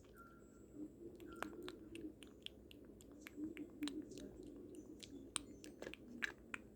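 Toys being handled: faint, irregular small clicks and taps, several a second, over a soft rustle.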